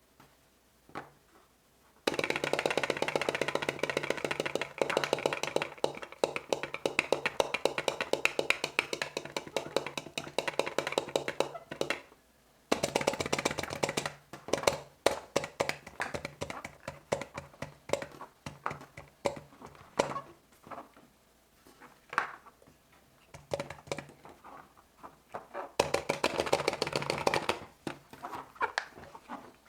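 Silicone pop-it fidget toy bubbles being pressed, making rapid runs of soft popping clicks, with scattered single pops between the runs.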